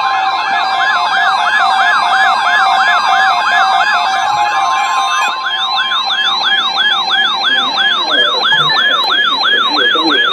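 Weather radio alert siren: a loud, fast, repeating rising warble at about two and a half sweeps a second. Under it, a steady alert tone stops about six seconds in, signalling an incoming alert, here a severe thunderstorm watch.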